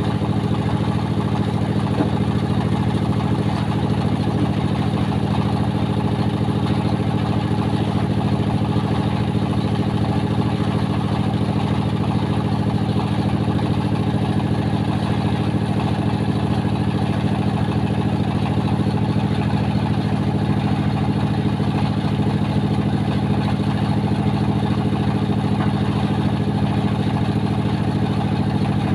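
Concrete-block (batako) press machine running, its motor driving the belt pulley with a loud, steady drone.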